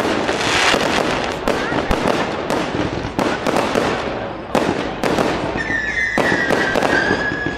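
Fireworks display: aerial shells bursting in a rapid string of sharp bangs over a dense crackle. About two thirds of the way through, a steady high whistle comes in and holds.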